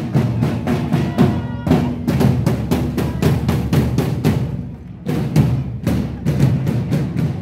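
A group of rope-tensioned marching drums beaten with wooden sticks in a steady marching rhythm. The drumming drops briefly about four and a half seconds in, then resumes.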